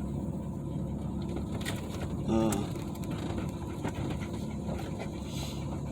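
Steady low rumble of a pickup truck driving, heard from inside the cab, with one short wavering vocal sound about two and a half seconds in.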